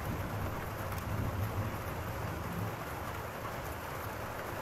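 Steady rain falling, with a low rumble of thunder under it that dies away about halfway through.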